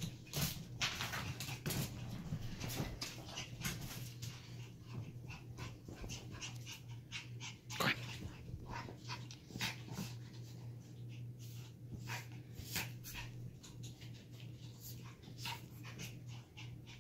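Two miniature schnauzers play-fighting: dog whimpers and breathing over many quick clicks and scuffles, with one sharper knock about halfway through. A steady low hum runs underneath.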